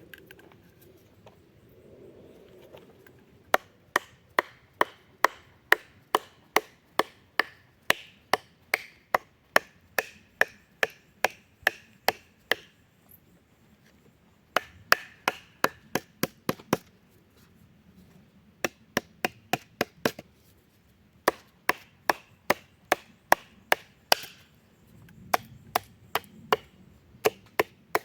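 Batoning: a wooden baton knocking on the spine of a bushcraft knife to split wood. The sharp knocks come about two a second, in several runs with short pauses between them.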